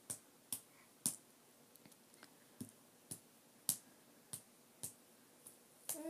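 A series of sharp, faint clicks or taps, about two a second and unevenly spaced.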